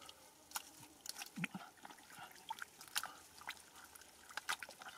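Gloved hands working through thick wet mud, giving faint, scattered wet squelches and sharp little clicks at irregular intervals.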